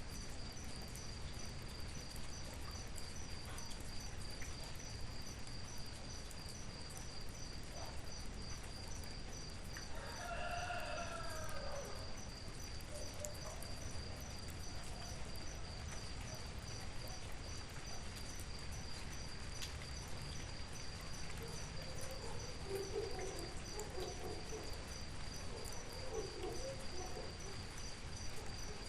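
Steady rain with a continuous high insect trill, typical of crickets. A rooster crows once about ten seconds in, and chickens cluck in short low bursts in the last third.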